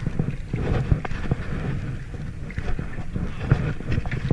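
Double-bladed kayak paddle dipping and splashing with each stroke, several short sharp strikes, over a steady rumble of wind on the microphone.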